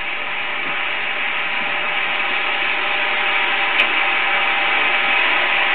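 Steady running noise of cinema projection-booth film equipment, with one sharp click about four seconds in.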